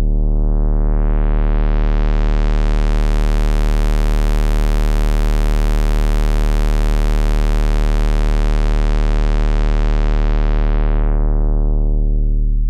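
Moog Model D synthesizer holding one deep, sustained bass note, played over speakers with an SVS PB-4000 subwoofer. The filter opens over the first two or three seconds, brightening the tone, then closes again near the end as the note fades away.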